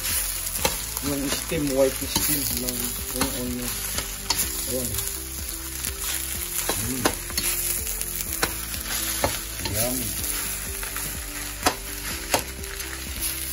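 Garlic fried rice sizzling in a hot wok while it is stirred with a spatula, with a steady hiss and irregular sharp knocks and scrapes of the spatula against the pan.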